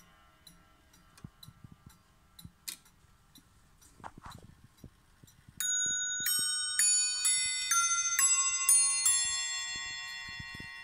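Camerer Kuss triple fusee clock movement ticking faintly with a few clicks, then a little past halfway its quarter chime sets off: the hammers strike a nest of eight bells in a quick tune, each note ringing on under the next.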